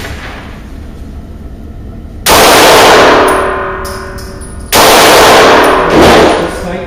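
Three shots from a Smith & Wesson Sigma SW9VE 9mm pistol: the first about two seconds in, the last two about a second apart. Each shot rings on with a long echo off the indoor range's concrete block walls.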